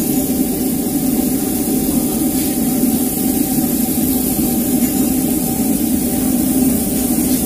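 A machine running steadily and loudly: an even motor hum with a hiss over it, without a break or change in pitch.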